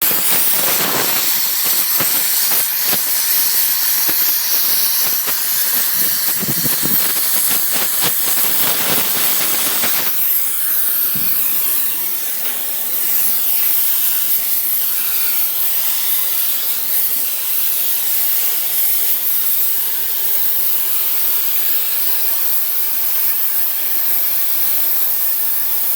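Torch hissing steadily at metalwork. It crackles and sputters for about the first ten seconds, then settles into a smoother, high hiss.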